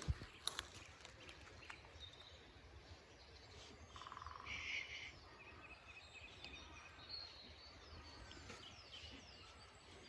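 Faint outdoor ambience with small birds chirping now and then, and a short buzzy call about four seconds in.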